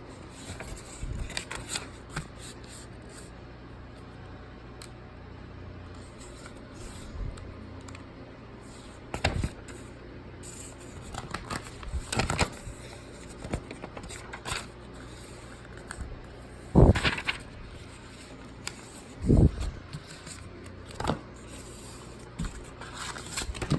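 Close-up handling of paper and packaging: intermittent rustling and scraping, such as pages of an instruction manual being turned, with scattered light clicks and two louder knocks of items being set down late on.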